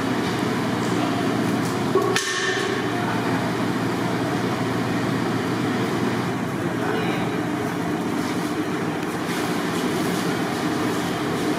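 Steady, loud machine-like rumble filling a large hall, with one sharp metallic clank that rings briefly about two seconds in.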